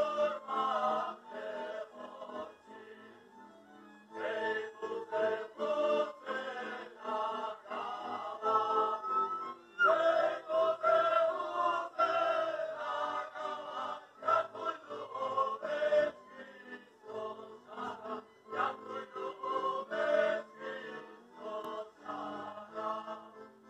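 Slovak folk band of violins, accordion and double bass playing a dance tune while a group of voices sings along, heard through a television speaker. The music dips briefly a couple of seconds in, then picks up again.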